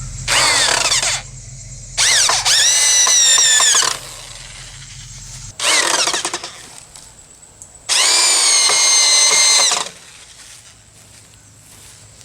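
Power drill driving screws into wood, in four bursts: a short whirr followed by a longer run, twice over.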